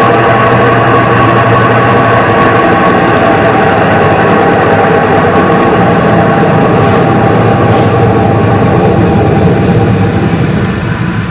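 Front-load washing machine running with a steady, loud mechanical drone: a motor hum and drum rumble, easing off about ten seconds in.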